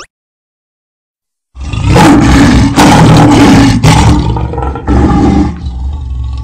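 Lion roar sound effect: loud, starting about a second and a half in, in three or four long heaves, then falling away to a quieter tail near the end.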